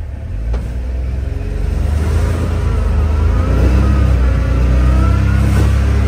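Side-by-side UTV engine heard from inside the cab, revving and accelerating as it ploughs through deep snow. The engine note climbs and grows louder from about two seconds in.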